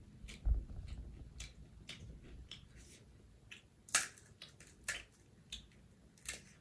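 Crisp crunching of chewing fried pani puri, with a low thump about half a second in. Then come sharp cracks as fingers break open hollow puri shells, the loudest about four seconds in and more around five and six seconds.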